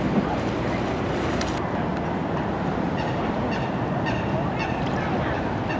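Geese honking, a run of short calls about two a second that starts partway through, over a steady loud outdoor rush.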